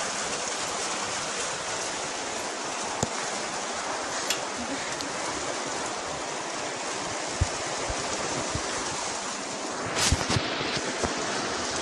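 Heavy rain falling as a steady, even hiss. A few faint knocks and a brief rustle come through about ten seconds in.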